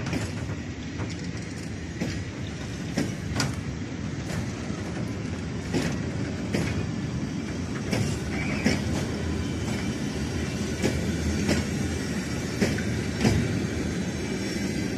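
Train of empty hopper wagons rolling past: a steady rumble of wheels on rail, with sharp knocks, often in pairs, every second or two as the wheelsets cross rail joints.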